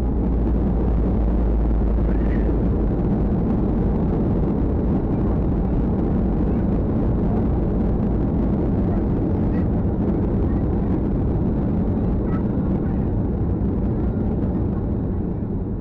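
Boeing 737-800 landing rollout heard from inside the cabin: a loud, steady roar of the engines and the wheels rumbling on the runway, easing slowly as the aircraft decelerates with its spoilers up.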